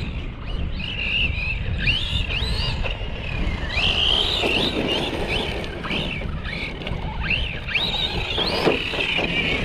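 Hobbywing brushless motor and drivetrain of a Redcat Kaiju 1/8-scale RC monster truck on 6S whining, rising and falling in pitch again and again as the throttle is punched. A steady low rumble runs underneath.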